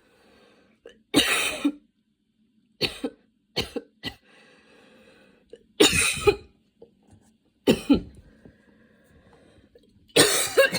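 A woman's coughing fit: a run of about seven separate coughs, spaced one to two seconds apart, with fainter sound between them.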